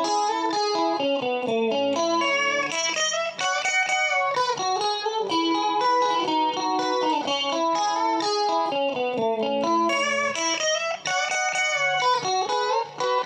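1985 Matsumoku-made Westone GT electric guitar playing a melodic lead line, with notes bent and slid in pitch, over a few lower sustained notes.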